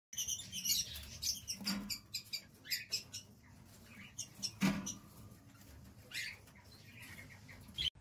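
Lovebirds chirping: quick high-pitched chirps, thick in the first three seconds and scattered after, with two dull thumps about two and five seconds in.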